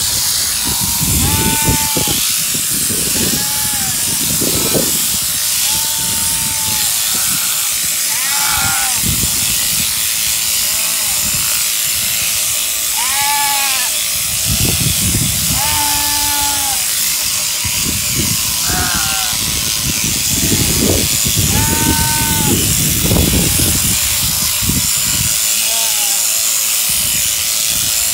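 Sheep bleating a dozen or so times, short arching calls about every one to two seconds, over the steady high whir of an electric sheep-shearing handpiece cutting wool.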